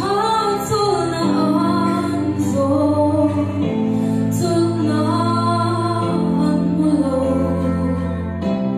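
A girl sings a gospel hymn into a microphone over a recorded backing track of sustained keyboard chords, which change every two to three seconds.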